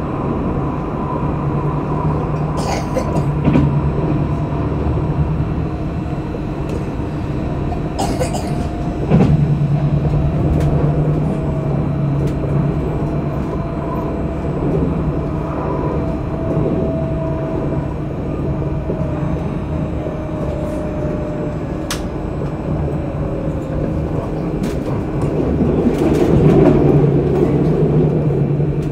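Tram running along its track, heard from inside the car: a steady low rumble with a faint tone that slowly falls in pitch through the middle, a few sharp clicks, and a rise in loudness near the end.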